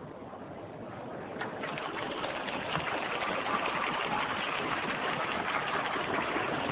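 Crowd applauding, swelling from about a second and a half in.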